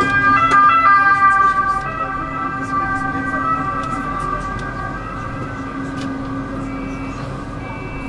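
Tram wheels squealing against the rails in several high, steady tones, loudest in the first two seconds and then easing, over a steady low hum of the running tram.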